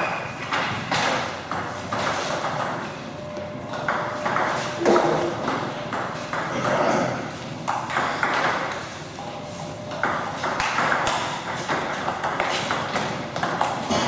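Table tennis balls clicking sharply and repeatedly off rackets and table during play, over the background noise of a playing hall.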